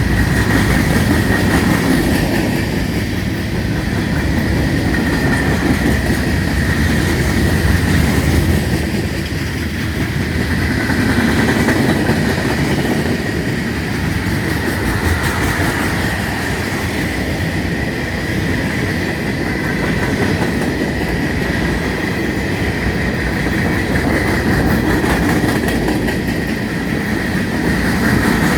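Freight cars of a long manifest train rolling past at slow speed, the wheels rattling and clicking over the rails. A steady high-pitched squeal runs throughout, and the sound swells and eases every few seconds as the cars go by.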